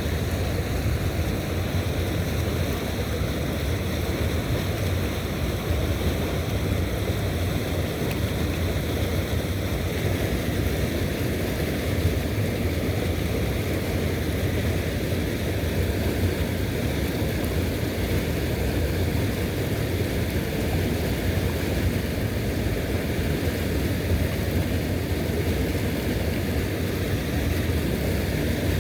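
Steady rushing outdoor noise, heaviest in the low range, with no distinct events.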